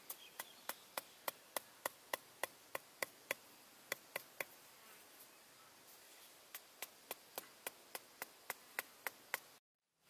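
Hatchet used as a hammer, tapping thin wooden stakes into sandy ground: a run of sharp, evenly spaced knocks about three a second, a pause of about two seconds midway, then a second run. The sound cuts out briefly just before the end.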